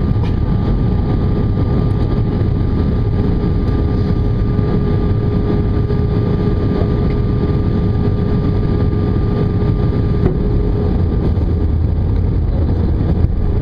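Airbus A320 engines and airflow heard from inside the passenger cabin: a loud, steady low drone with a steady whine held over it.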